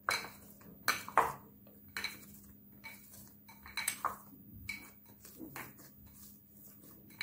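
Soft oiled maida dough being kneaded by hand in a glass bowl, with irregular knocks and clinks of the glass bowl, some with a short ring, as it is pressed and shifted.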